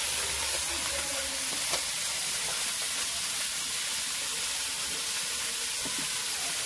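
Small turmeric-coated fish shallow-frying in oil in an iron kadai (wok), a steady sizzle with a couple of faint ticks.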